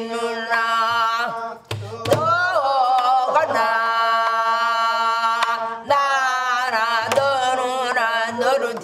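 Korean traditional singing in the pansori style: long, drawn-out vocal notes that waver and then hold steady, with a few low buk drum strokes underneath.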